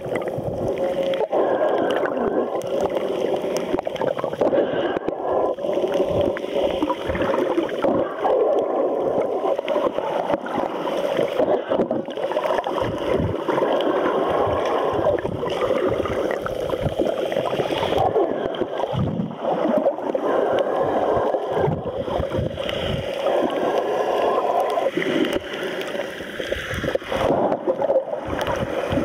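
Underwater sea noise, a steady rushing and gurgling of shallow water, heard through the sealed body of a submerged waterproof compact camera.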